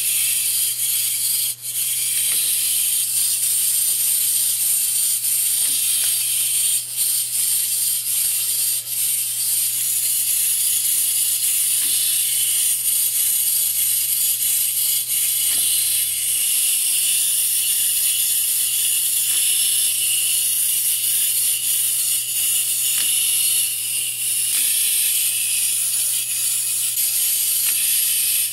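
Clockwork motors of plastic wind-up dancing frog toys running, a steady high whir with a few sharp clicks.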